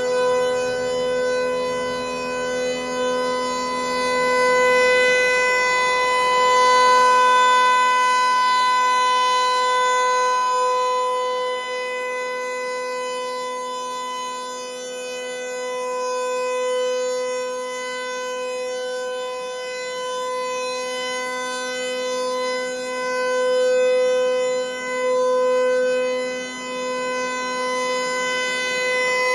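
Federal Signal 508-128 outdoor warning siren sounding a steady full-alert tone at one unchanging pitch. The loudness swells and fades slowly several times as the rotating head sweeps past.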